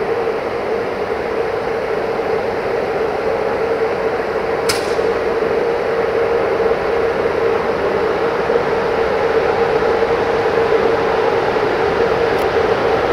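Locomotive running as its passenger train draws slowly in, a steady hum that grows gradually louder, with a single short click about five seconds in.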